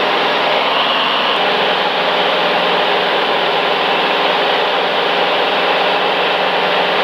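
Steady cockpit noise of a light aircraft in flight on final approach: engine, propeller and airflow running at one even level.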